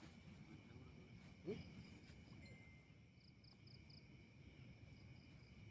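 Faint night insects, likely crickets, keeping up a steady high drone, with a quick run of four chirps about three seconds in. A brief rising sound about a second and a half in is the loudest moment.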